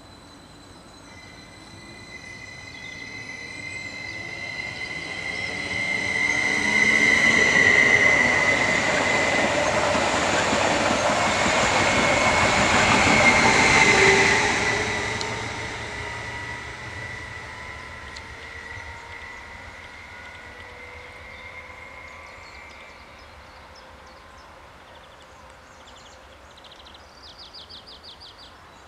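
Stadler FLIRT ET25 electric multiple unit accelerating away from a station and passing close by: an electric traction whine whose tones rise slightly in pitch, over the rumble of the wheels on the rails. It grows louder, is loudest for several seconds around the middle as the train passes, then fades into the distance.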